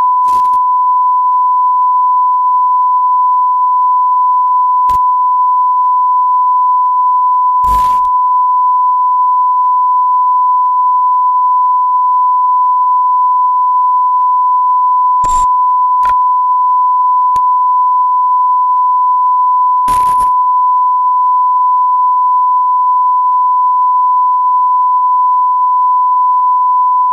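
A steady electronic beep tone at about 1 kHz, loud and unbroken, like a test tone, with a few faint clicks scattered through it.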